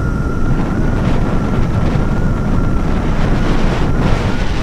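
Wind buffeting the microphone over a motorcycle's steady engine rumble, as while riding, with a thin steady whine above it.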